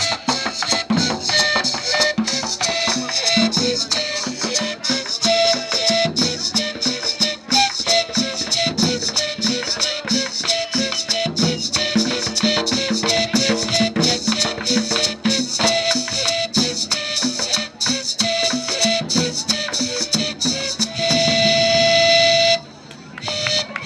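Live traditional Colombian cumbia played by a small band: a rapidly shaken rattle over drums, with a melody of short repeated notes. The melody ends on a long held note and the music stops abruptly near the end.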